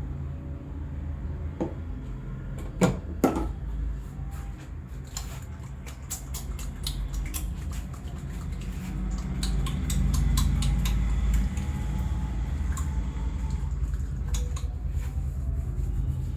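Hands-on head and neck massage: two sharp cracks close together about three seconds in, then a run of many light clicks and crackles, over a steady low rumble.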